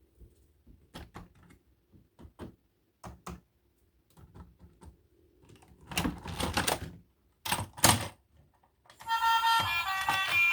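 Hard plastic toys and their packaging being handled: scattered sharp clicks and taps, a longer rustle about six seconds in and two louder clacks after it. Music starts about nine seconds in.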